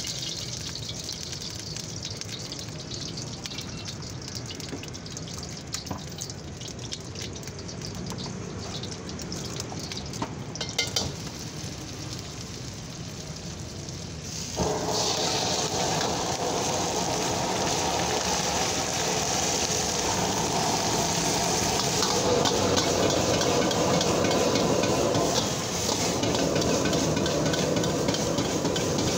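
A steady rush of the wok burner with a couple of clinks of the ladle against the wok, then, about halfway through, a sudden loud sizzle as chopped dried chillies and aromatics hit the hot oil. Continuous frying and sizzling follows as the food is stir-fried with the ladle.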